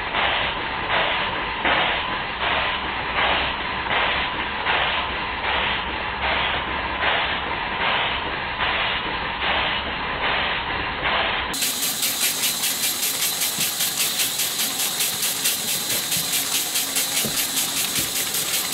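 Two small model steam engines, an 1896 horizontal engine and a Stuart 10H, running together on live steam. There is a steady steam hiss with rhythmic exhaust puffs, about one and a half a second, then from about eleven seconds in a quicker beat of about four a second. Part of the hiss is steam blowing from the old engine's dummy piston rod gland.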